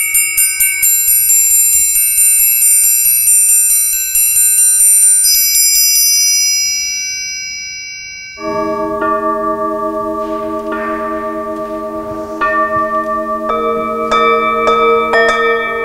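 Metal triangle struck in a fast, even roll of about four or five strokes a second, its bright ringing dying away after about six seconds. About eight seconds in, a set of metal singing bowls sounds suddenly, several low humming tones with a slow pulsing beat, struck again with mallets in the last few seconds.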